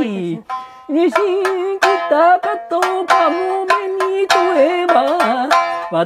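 Shamisen struck with a bachi plectrum, sharp plucked notes several times a second with a buzzing sustain from its sawari, under a voice singing a Japanese folk-song melody with bending pitch.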